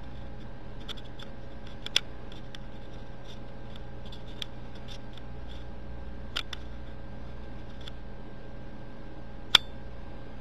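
Scattered sharp clicks and taps over a steady background hum. The loudest come about two seconds in and near the end.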